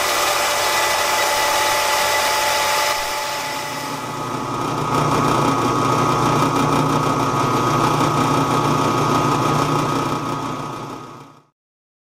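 A belt grinder running steadily, then from about four seconds in a drill press boring a hole in a metal plate with the resharpened twist bit: a steady motor sound with a steady high tone over it. The sound cuts off suddenly near the end.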